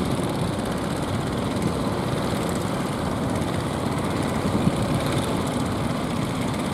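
Fishing boat engine running steadily, a low drone under the wash of rough water.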